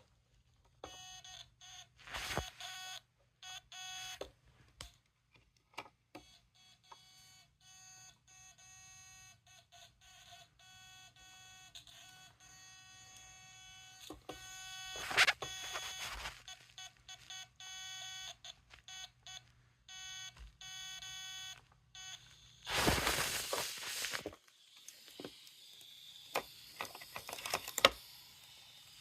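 Homemade Morse code machine sounding a buzzy beep tone, keyed on and off in short and long beeps like dots and dashes. Sharp clicks fall in between, and about three-quarters of the way through there is a loud rustling burst.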